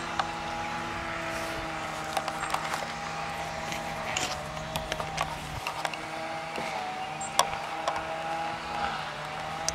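A steady motor hum with several pitches, the highest wavering slightly, with scattered sharp clicks over it.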